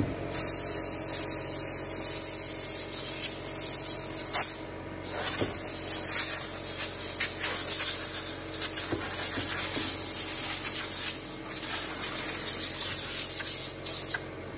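Compressed-air blow gun hissing in long blasts as a Stihl MS362 chainsaw is blown out, with a short break about four and a half seconds in. Light knocks come from the saw being handled on the bench.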